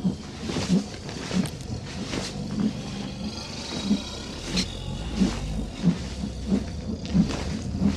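Sound effect of a dragon flying: heavy wingbeats, about three every two seconds, over a rushing wind rumble.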